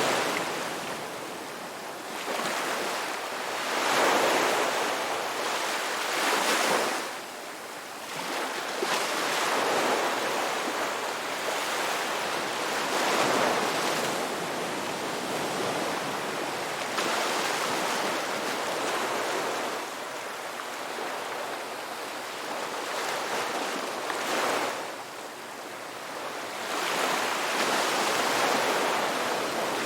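Ocean waves washing onto a shore, each surge swelling and falling away every few seconds.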